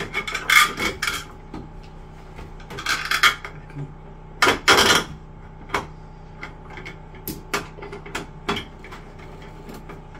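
A metal screwdriver clicking and scraping against a chrome shower valve trim plate as a screw is worked, with scattered light ticks and three longer scrapes, the loudest about halfway through.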